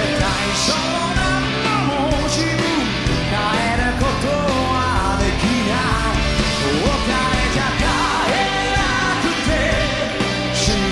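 Live rock band performance: a male lead singer singing into a handheld microphone over electric guitar and the full band, at a steady loud level.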